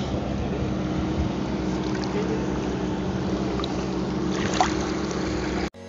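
Motorboat engine running steadily with a constant hum over water and wind noise, cut off abruptly near the end.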